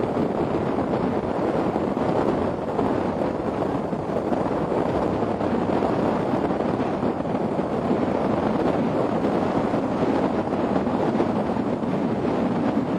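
Steady wind noise buffeting the microphone, an even rushing with no breaks.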